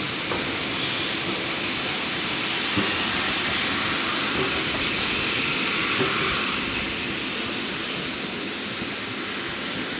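Railway passenger coaches rolling past close by: a steady rumble and hiss of wheels on rail, loudest midway and easing slightly near the end, with a few sharp knocks.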